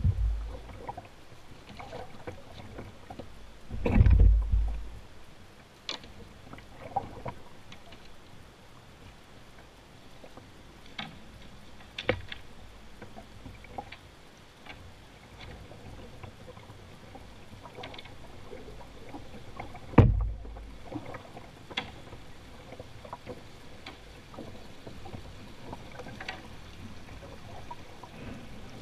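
Canoe being poled through a shallow riffle: steady rushing of the river around the hull, with scattered clicks and knocks from the pole striking the gravel bed and the boat. Two heavy deep thumps stand out, about four seconds in and again about twenty seconds in.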